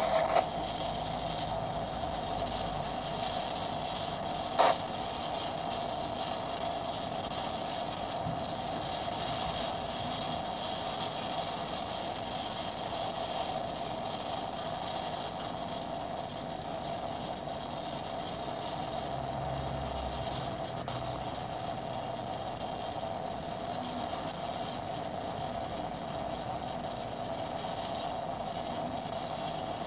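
Wheels of a double-stack container train's well cars rolling past on the rails, a steady running noise with one sharp click about four and a half seconds in.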